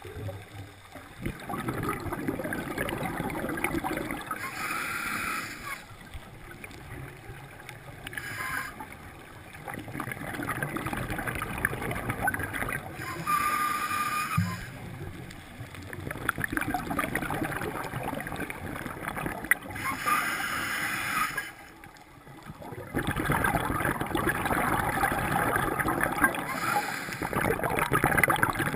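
Scuba diver breathing through a regulator underwater: short hissing inhalations alternate with longer stretches of exhaled bubbles gurgling, several breath cycles in a row.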